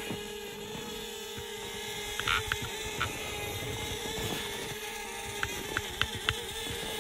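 DJI Spark quadcopter's propellers and motors running with a steady buzzing whine while it hovers and drifts. Several short sharp clicks come over it, one about two seconds in, another about a second later, and three or four close together near the end.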